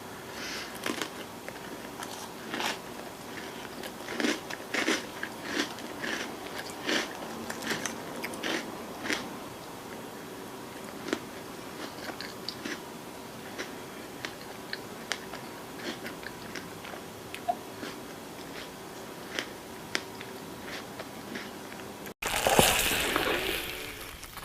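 Close-miked eating: crisp bites and crunchy chewing with many sharp crackles, thickest in the first half and thinning out later. Near the end, after an abrupt cut, a louder, noisier burst runs for about two seconds.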